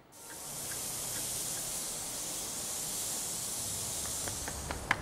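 A steady high hiss that fades in at the start, with a few faint scattered clicks and two sharper clicks near the end.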